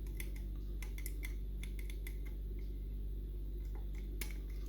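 Small, irregular metal clicks of picks working the levers inside a Union Strongbolt lever mortice lock, over a steady low hum.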